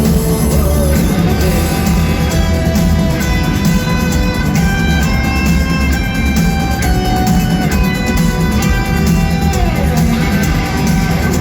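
Loud music with guitar and sustained melodic notes over a heavy, steady bass.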